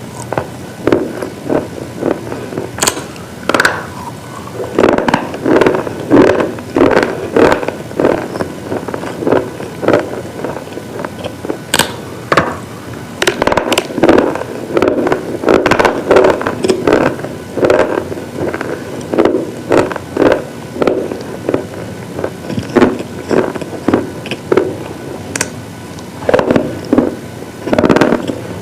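Brittle slate pieces crunching, a run of sharp dry crunches coming one or two a second, with a few sparser stretches.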